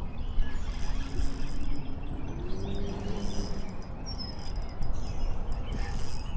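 Outdoor river ambience: a steady low rumble of wind on the microphone, with short bird chirps over it.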